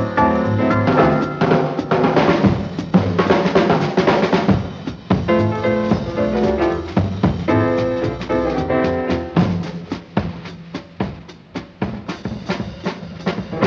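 Jazz quartet playing swing with the drum kit to the fore. The piano and band fill the first few seconds, then the drums carry on mostly alone with sharp snare and bass-drum hits before the other instruments come back near the end.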